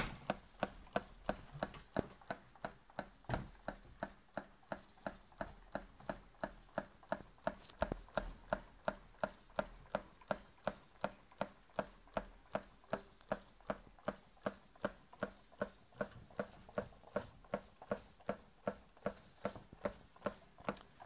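Homemade tin-can Stirling engine running steadily, its mechanism giving a sharp, even click about two and a half times a second.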